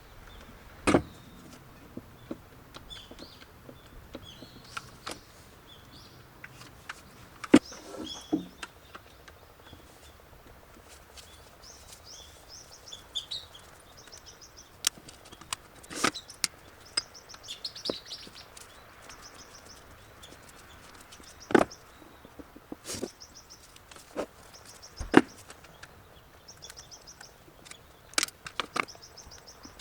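Small birds chirping in repeated short trills in the background, with sharp clicks and knocks scattered irregularly throughout, louder than the birdsong.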